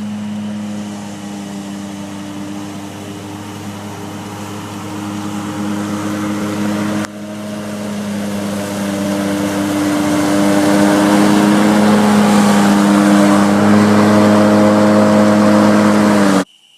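Ferris IS 2100Z zero-turn mower's 28 hp Briggs & Stratton engine running steadily while mowing. It gets louder about ten seconds in and cuts off abruptly near the end.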